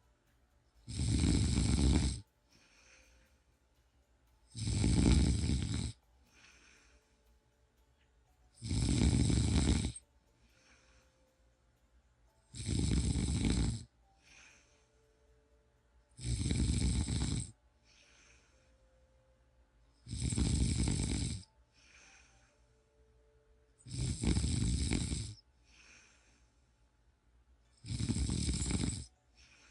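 A person snoring in a steady, unchanging rhythm: eight loud snores about four seconds apart, each just over a second long, with a faint breath between them.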